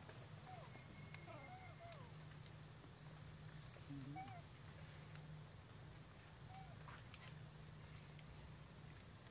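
Faint, short squeaky calls from young macaques, several scattered through, over a steady high chirring and a low hum of outdoor background.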